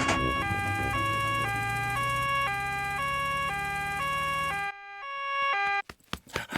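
Cartoon two-tone emergency siren going nee-naw, a high and a low note taking turns about twice a second over a low engine hum as the doctor's car drives up. It stops about five seconds in, followed by a few short knocks near the end.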